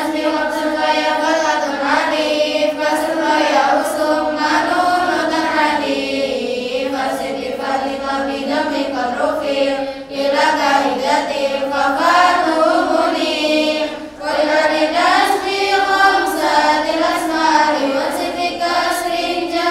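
A large group of girls chanting rhymed Arabic grammar verses in unison, a lalaran memorisation recital. The chant runs without a break except for two short pauses for breath, about halfway through and again a few seconds later.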